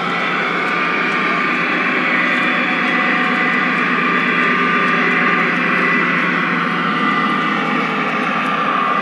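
Model train running: a steady mechanical rumble with a constant high whine over it.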